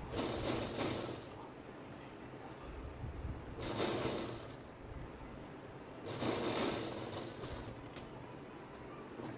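Sewing machine running in three short bursts, each about a second long, stitching folded rib binding around a neckline.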